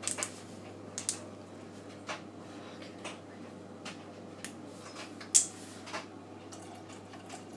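Sharp clicks, roughly one a second, from a small whiskey bottle's screw cap being twisted open by hand, with the loudest click about five seconds in, over a low steady hum.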